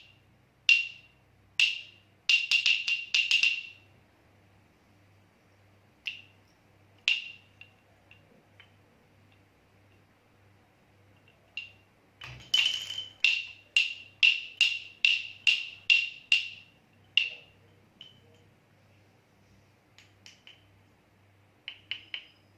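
Baby rattle being shaken in sharp rattling strokes with a bright ringing edge. A quick flurry comes a few seconds in, then a quiet stretch of several seconds. A run of about two shakes a second follows, thinning to a few scattered shakes near the end.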